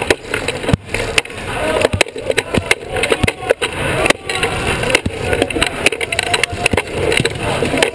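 Sports wheelchair rolling fast over a hardwood court, heard from a camera mounted on the chair: a steady rolling rumble with many sharp knocks and clatters from the chair frames and wheels.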